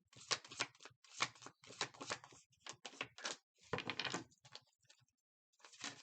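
A deck of tarot cards being shuffled and handled: irregular papery snaps and taps, several a second, stopping for about a second near the end.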